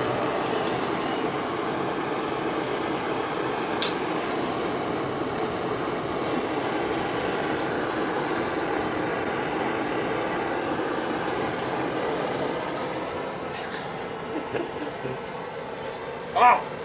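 Gas blowtorch flame hissing steadily as it heats the end of a plastic hose to melt it closed, easing off a little near the end.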